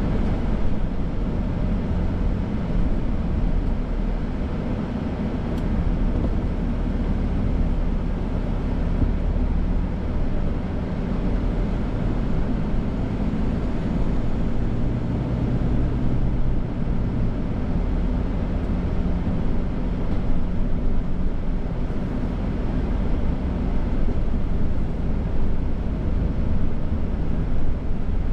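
Pickup truck engine and road noise heard from inside the cab: a steady low rumble while driving at low speed.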